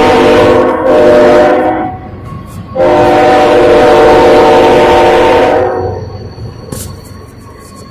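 Diesel locomotive air horn sounding a steady multi-note chord in two long blasts. The first ends about two seconds in; after a short gap the second sounds for about three seconds. Once it stops, only the fainter rumble of the passing train remains.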